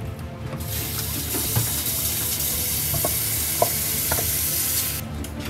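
Kitchen mixer tap running into a stainless steel sink, a steady hiss that starts about half a second in and shuts off shortly before the end, with a few light clinks.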